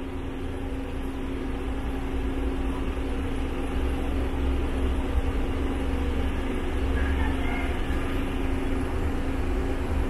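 An engine running steadily: a low rumble with a constant hum that grows gradually louder over the first few seconds.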